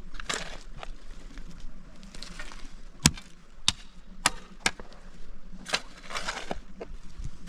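Hand-tool work: four sharp strikes about half a second apart around the middle, with scraping swishes before and after.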